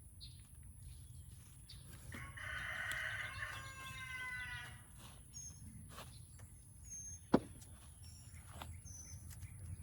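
A rooster crows once, a call of about two and a half seconds that sags in pitch at the end, with small birds chirping afterwards. A single sharp click about seven seconds in is the loudest sound.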